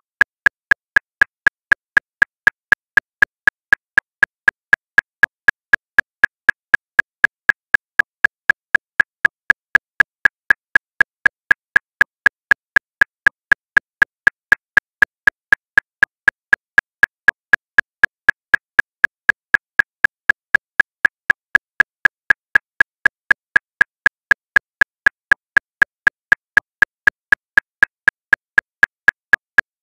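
Metronome clicking steadily at 239 beats per minute, about four sharp, even clicks a second with no accented beat.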